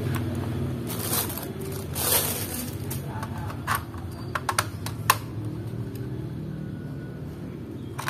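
AA batteries being fitted into a toy car's plastic battery compartment: a few scattered clicks and taps as they are pressed against the spring contacts, over a steady low background hum.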